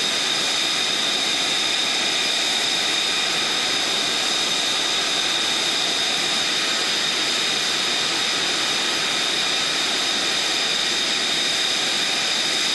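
F-35B Lightning II's Pratt & Whitney F135 jet engine running steadily on the ground: a loud even rush with a high, steady whine on top.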